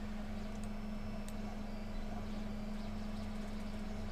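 Steady low electrical or mechanical hum of the room, with two faint clicks about half a second and just over a second in.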